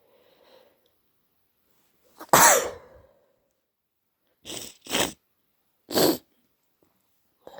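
A person sneezing, induced to relieve a blocked nose: a quick intake, then one loud sneeze about two seconds in, followed by three shorter, sharp bursts over the next few seconds.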